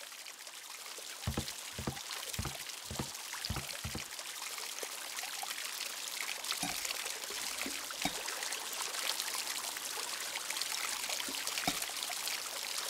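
Water being poured from a small bottle into the clear cylinders of a solar hydrogen electrolysis model, a steady splashing trickle. About a second in comes a quick run of six low thuds, with a few more later.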